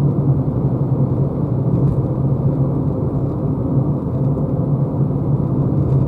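Steady tyre and road rumble heard inside the cabin of a Renault Zoé electric car cruising at about 84 km/h; there is no engine note, only the deep drone of the tyres and the body.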